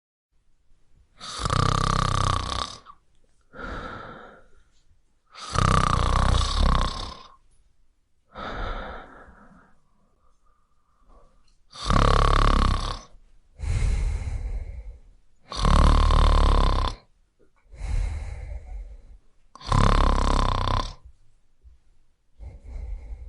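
A person snoring in a slow, regular cycle: five loud snores, each followed by a softer breath out, with a faint whistling breath near the middle.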